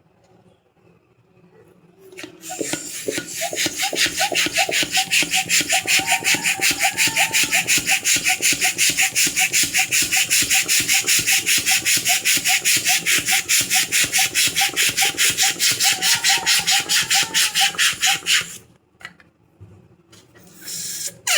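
Hand balloon pump worked rapidly to inflate a latex balloon: even pumping strokes of about five a second, each a rush of air with a light squeak. It starts a couple of seconds in and stops abruptly near the end.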